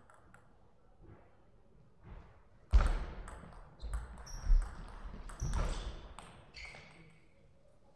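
Table tennis rally: the celluloid-type plastic ball clicking off rackets and the table in quick exchanges, mixed with heavy thuds of players' feet on the floor, starting about two seconds in and stopping a second before the end.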